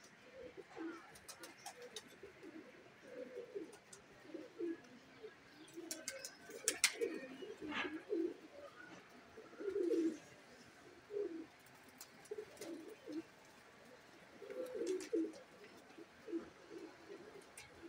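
Domestic pigeons cooing over and over in short, low, warbling calls. A few sharp clicks sound about six to eight seconds in.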